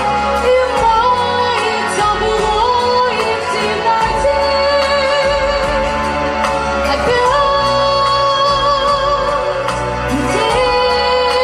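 Pop song with female singing: long held notes with vibrato, sliding from one pitch to the next, over a steady recorded backing track.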